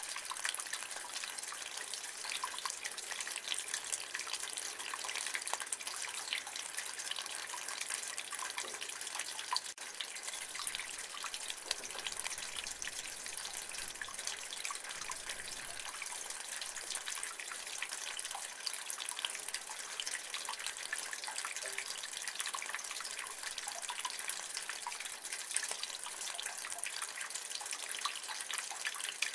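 Rainwater running and dripping from a gutter, a steady dense patter and splashing of drops.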